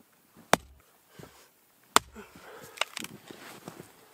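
Two sharp strikes of a small hatchet splitting a firewood round on a chopping block, about a second and a half apart, followed by a few lighter knocks and clicks of wood.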